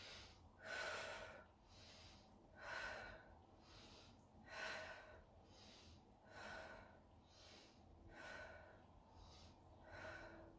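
A woman's paced, audible breathing in time with a fast arm exercise: alternating inhales and exhales about once a second, one breath of each pair stronger than the other, faint overall.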